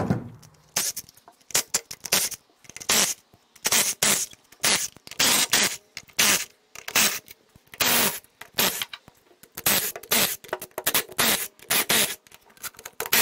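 A ratchet wrench working in short strokes, each stroke a quick burst of pawl clicks, repeating one or two times a second, as it backs out the ring of 10 mm bolts holding the transfer case halves together.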